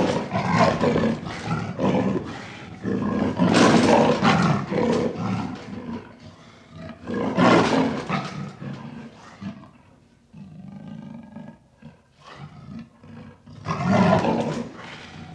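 Panther (big cat) roaring and snarling: four loud, rough roars a few seconds apart, with quieter rasping growls between them.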